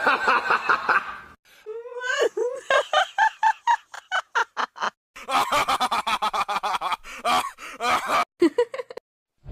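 Cartoon character voice sound effects: several short clips of high-pitched laughing and snickering in quick pulses, cut one after another with brief silent gaps between them.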